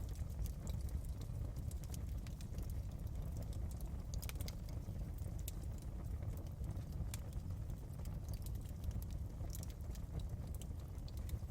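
Wood fire crackling in a fireplace: irregular sharp pops and snaps scattered over a steady low rumble.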